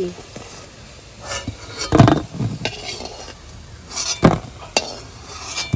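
Metal spatula scraping and clinking against a steel kadai and a steel plate as fried chhana balls are lifted out of the oil, a few sharp strokes, the loudest about two seconds in. A faint sizzle of hot oil underneath.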